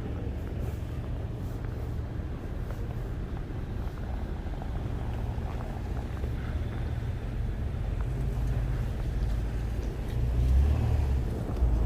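Steady low rumble of road traffic on a city street, louder from about ten seconds in.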